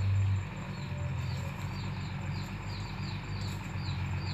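Distant six-wheel diesel dump truck's engine, a steady low rumble as it drives over a dirt track. Over it, a high chirp repeats two or three times a second.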